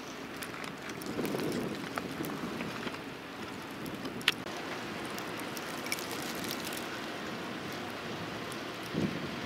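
Winter coastal-storm ambience: a steady hiss with scattered sharp ticks, and low rumbles about a second in and again near the end.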